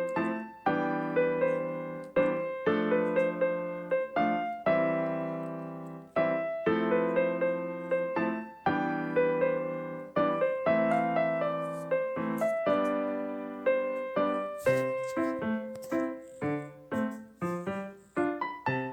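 Background piano music: a melody over repeated struck chords, each note dying away before the next.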